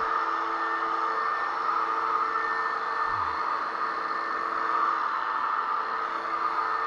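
Electric drywall sander running steadily on drywall joint compound: an even whir with a few steady motor tones underneath.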